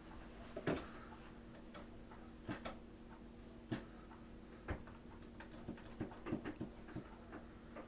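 Light knocks and clicks of things being handled in a kitchen, coming at irregular moments, over a steady low hum.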